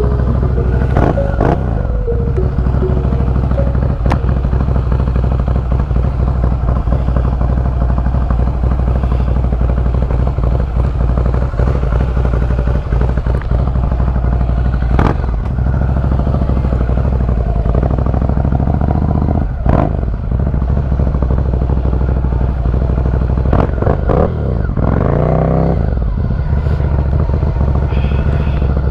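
Ducati motorcycle engine running steadily under way, heard from the rider's position. There are a few short knocks, and about 25 seconds in the engine pitch rises and falls with a throttle change.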